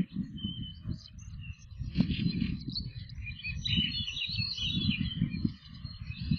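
Small birds chirping faintly, with a low, uneven wind rumble on the outdoor microphone of a stork-nest webcam, and a single click about two seconds in.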